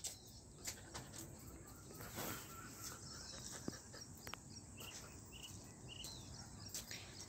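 Faint outdoor background with scattered clicks and a few short, high chirps, about one every half second for a couple of seconds past the middle.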